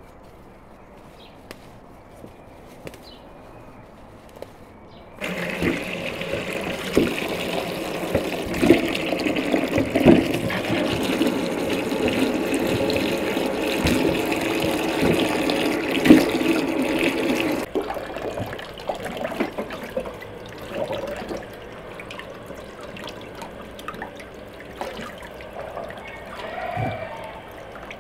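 Water gushing steadily into a container, starting suddenly and cutting off sharply after about twelve seconds, followed by softer dribbling and splashing.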